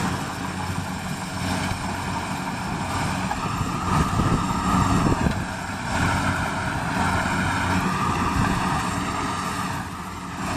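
Engine of a Kubota harvesting machine running steadily, with a higher whine that rises and falls gently in pitch.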